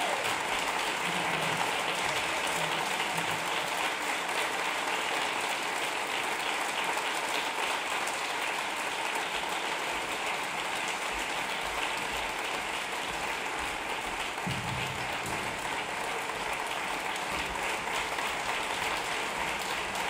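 Audience applauding: many hands clapping in a steady, sustained ovation.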